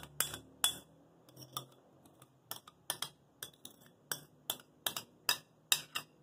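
Metal spoon clinking and scraping against a glass bowl as batter is scraped out of it: a quick run of sharp clinks, two or three a second.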